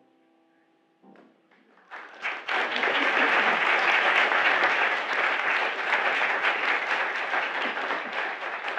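Audience applauding: a few scattered claps about a second in, swelling into full applause by about two seconds and thinning slightly near the end.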